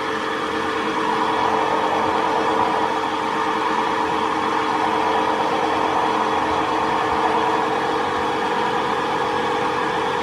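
Large engine running steadily, growing a little louder over the first second or so.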